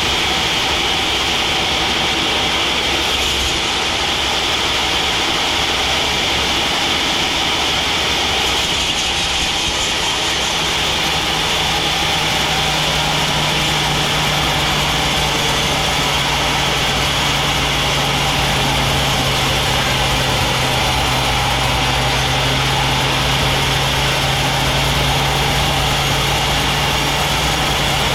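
Sawmill band saw machinery running steadily. A steady low hum sets in a little over a third of the way through.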